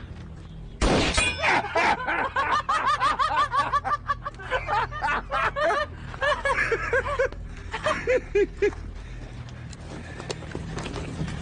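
Several men laughing loudly together in a rapid ha-ha-ha, breaking out about a second in and dying away about nine seconds in.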